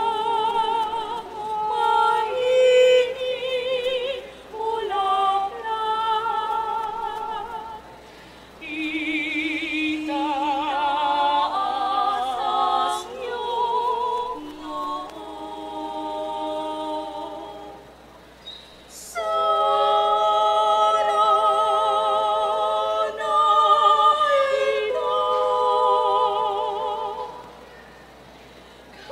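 Choir of women's and other voices singing a cappella with vibrato, in several sung phrases separated by short breaths, about 8, 18 and 28 seconds in.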